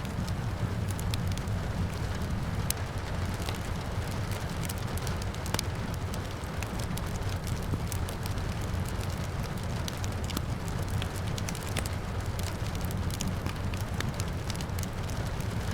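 Wood fire crackling in a fireplace, with many irregular sharp pops and snaps over a steady low rumble, and a soft hiss of rain behind it.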